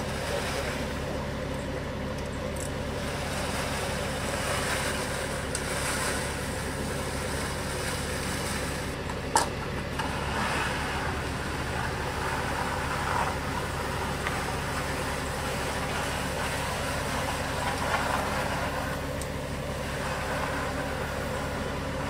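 Concrete mixer truck's engine idling steadily, with soft intermittent swishes as a bull float is pushed over wet concrete and one sharp click about nine seconds in.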